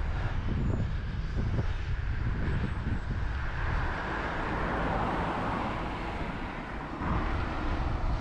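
Wind buffeting the microphone of a camera on a moving bicycle, a steady rumble, with a rushing noise that swells about halfway through and fades again.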